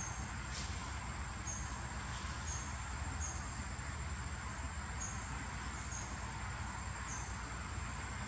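Insects: a steady high-pitched buzz, with short high chirps repeating about once a second, over a low steady rumble.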